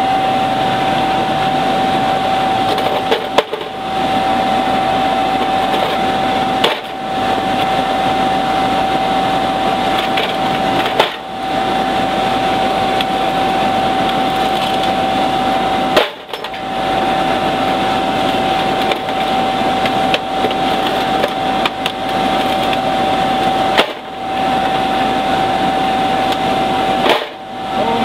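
Steady drone of the waste-oil burner's electric air blower, a constant whine over a rushing noise. It breaks off briefly several times, and a few faint clicks sound over it.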